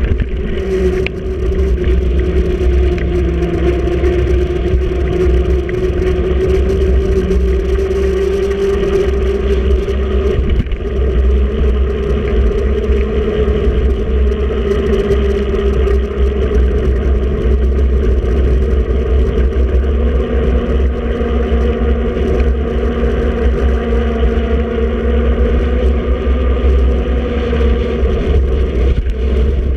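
Steady wind rush buffeting a moving action camera, with a hum from the tyres rolling on the road that drifts slowly up and down in pitch with speed.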